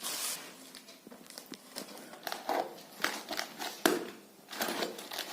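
Cardboard box and its packaging being opened and handled: irregular crinkling, rustling and scraping, with a sharp knock just before four seconds in.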